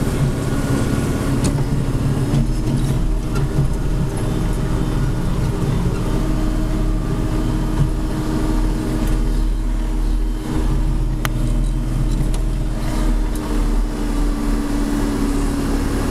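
John Deere 4630's six-cylinder turbo diesel running steadily under load, heard from inside the cab while pulling a chisel plow. A couple of sharp clicks sound over the even engine hum.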